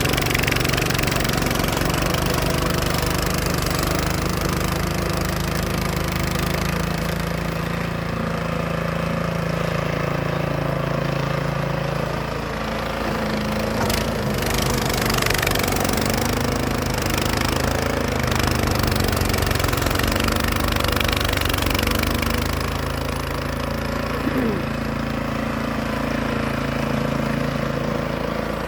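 Snow blower engine running steadily while it clears heavy, wet snow. Its note shifts a couple of times as the load changes, with a sharp click about halfway through.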